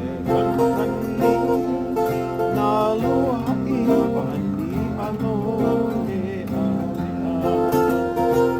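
Acoustic guitar playing a tune with plucked, ringing notes, a wavering melody line weaving through the middle.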